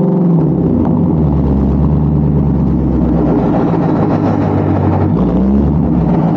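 Shelby GT350's 5.2-litre flat-plane-crank Voodoo V8 running through long-tube headers and a resonator-deleted exhaust. It holds a steady low note, with a short rise in revs about five seconds in.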